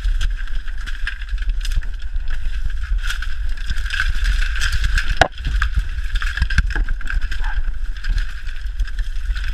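Dense dry bamboo stalks rustling and scraping against the body and camera as someone pushes through a thicket, with frequent small snaps and knocks and a low rumble of handling on the microphone; one sharper knock about halfway through.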